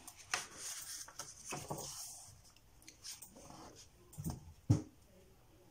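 Paper pages of an activity book being turned by hand: rustling and sliding strokes of paper, with one short thump a little past three-quarters of the way through.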